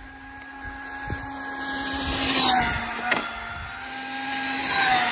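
Arrma Infraction V2 RC car's brushless motor and drivetrain whining at speed. It swells and fades twice, with the pitch dropping as it goes past. A sharp click comes about three seconds in.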